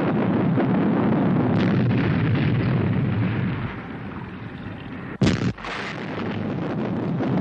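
Explosions as a missile hits an undersea cannon. A long rumbling blast fades over about four seconds. A sudden sharp bang, the loudest moment, comes a little over five seconds in, and another rumbling blast swells up near the end.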